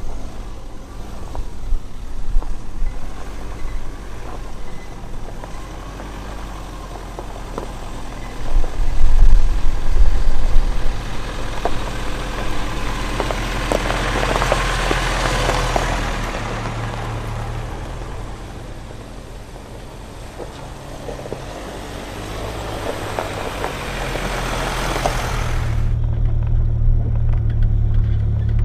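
Four-wheel-drive vehicle engine running as it works along a rough bush track, with a steady low rumble. A burst of loud knocks and jolts comes about eight seconds in. A rushing noise swells twice and cuts off abruptly near the end.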